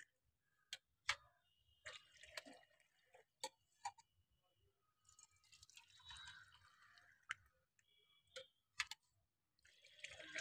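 Faint trickle and splash of lassi poured in a thin stream from a steel jug into a steel tumbler, with scattered sharp clinks of the steel vessels.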